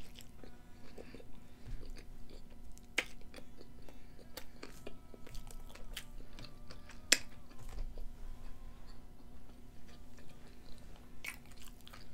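A person chewing a bite of cheeseburger, with many small mouth clicks and a few sharper smacks, over a faint steady hum.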